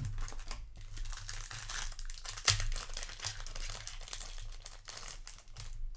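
Foil wrapper of a Magic: The Gathering set booster pack crinkling as it is handled and torn open by hand, with one louder snap about two and a half seconds in.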